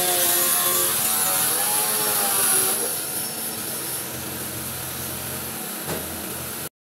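Power tool motor running with a high hiss, its pitch wavering up and down as if under changing load, then settling lower and quieter about three seconds in; the sound cuts off abruptly near the end.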